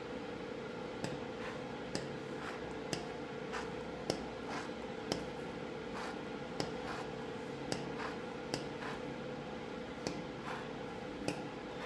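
Hand-foam pump dispenser pressed over and over, a sharp click roughly once a second with each stroke as it pushes out foam, over a steady hum.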